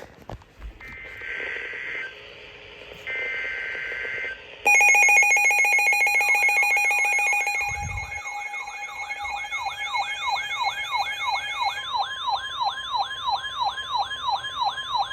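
Emergency Alert System broadcast: two short bursts of buzzing two-tone data (the SAME header), then a loud steady alert tone starts abruptly about four and a half seconds in. A wailing siren-like tone sweeps up and down over it about twice a second.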